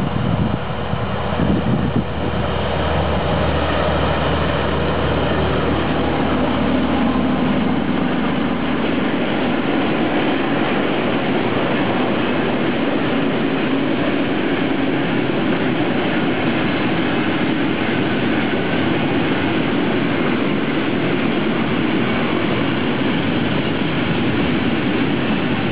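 DB class 212 (V 100) diesel-hydraulic locomotive passing with a freight train: its engine drone is heard for about the first third. After that comes the steady rumble and clatter of a long string of bogie hopper wagons rolling past on the track.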